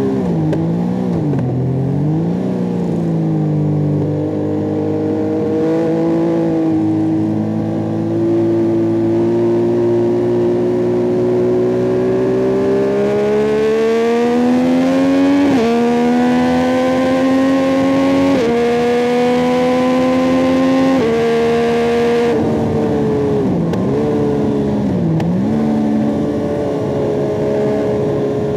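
Yamaha MT-09 SP's three-cylinder CP3 engine through an Akrapovic carbon racing exhaust, ridden hard. Its pitch climbs steadily under acceleration, breaks sharply at several gear changes, then dips quickly up and down a few times as the bike slows.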